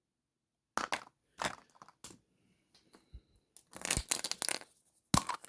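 Plastic surprise-egg packaging being handled and opened by hand: a string of short crinkles and clicks, busiest about four seconds in.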